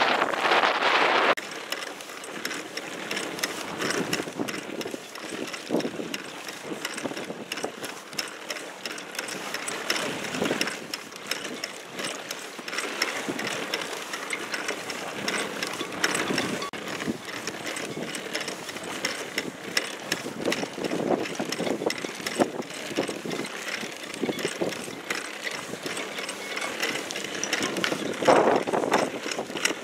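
Choppy water slapping and splashing against a small inflatable boat's hull as it is paddled, in an irregular run of small knocks and splashes. Wind buffets the microphone loudly for the first second or so.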